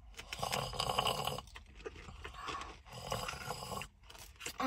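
Close mouth noises of eating ice cream: chewing and crunching a wafer cone and slurping from a cup, in two soft stretches about a second long each.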